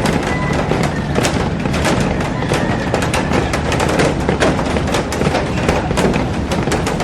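Heavy rain falling on a glass roof and garden: a dense, steady rush of rain with many sharp drops and drips striking the glass all through.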